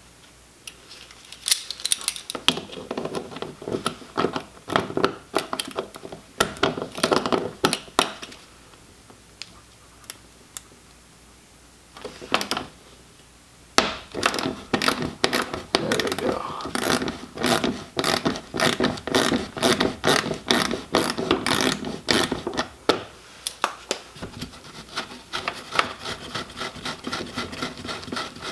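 Ratcheting 10 mm socket wrench clicking in quick runs as the fog light's mounting screw is backed out, with short pauses between the runs.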